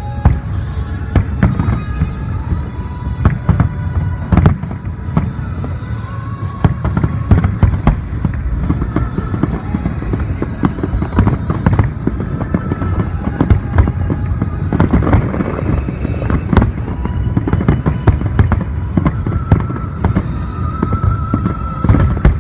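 Dense barrage of fireworks shells bursting, many sharp reports each second with heavy low booms, and no let-up.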